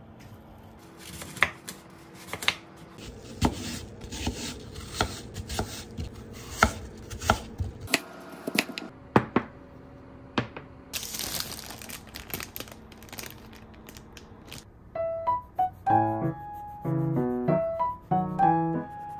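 Kitchen food-preparation sounds: irregular taps and knocks of utensils, with a brief rustle about eleven seconds in. Soft piano music comes in for the last few seconds.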